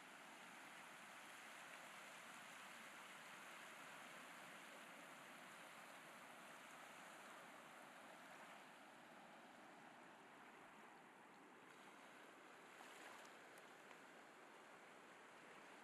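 Faint, steady wash of ocean surf on a sandy beach, a continuous hiss that eases slightly a little past halfway.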